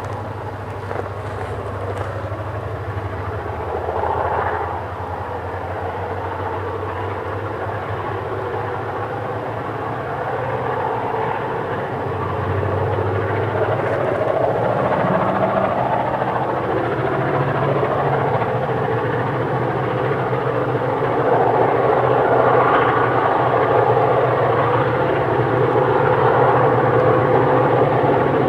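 EMD diesel-electric locomotives working hard under load, a continuous heavy engine sound that grows gradually louder, with a brief swell about four seconds in.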